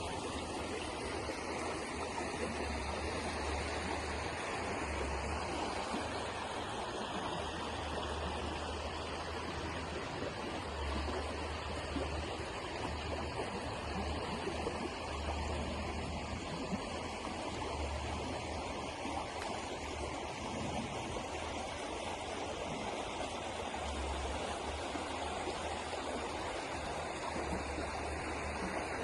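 River water flowing, a steady rushing and gurgling with no pauses.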